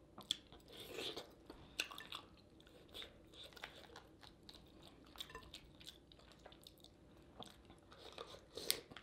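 A person chewing food from a seafood boil of lobster tails, corn and potatoes in sauce, close to the microphone. The sound is faint, with scattered wet mouth clicks and crunches.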